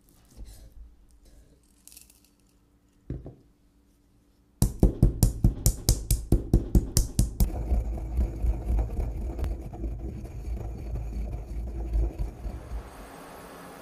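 Soft knife cuts through bacon on a wooden cutting board. Then a marble mortar and pestle crushes whole peppercorns: sharp strikes about five a second for some three seconds, then a steady gritty grinding as the pepper turns to powder.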